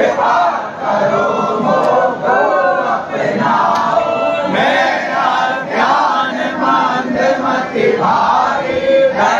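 Crowd of Hindu devotees chanting and calling out together, many loud voices overlapping without a break.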